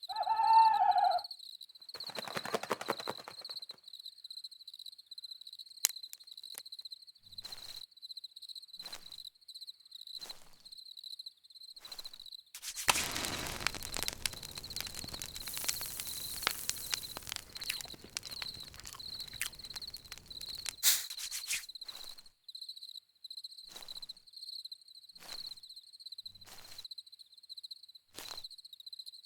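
Night-time campfire ambience: crickets chirping steadily under scattered crackles and pops from the fire. A louder rush of noise runs from about a third of the way in to about two-thirds through, and a short call sounds at the very start.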